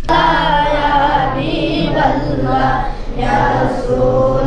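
Voices singing an Islamic devotional song (nasheed) in chorus, unaccompanied, in long held phrases that rise and fall. The singing starts suddenly at the outset.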